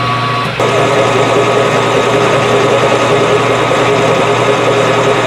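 A 12x36 metal lathe running with a twist drill turning in the chuck; about half a second in, the drill feeds back into the hole in the metal block clamped to the carriage and starts cutting, adding a rougher, grinding noise over the steady hum of the machine.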